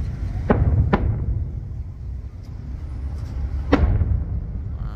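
Aerial fireworks shells bursting with sharp bangs: two in quick succession about half a second in, and a third just before the four-second mark, over a steady low rumble.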